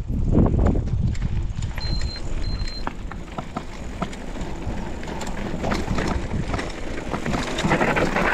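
Mountain bike rolling over a rough dirt trail: a steady rumble of tyres and wind on the microphone, with the bike rattling and knocking over bumps. Two short high squeaks about two seconds in.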